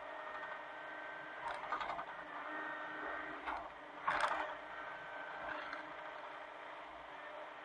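Hitachi mini excavator's engine running steadily, with a few short scrapes and knocks from the machine's work, the loudest about four seconds in.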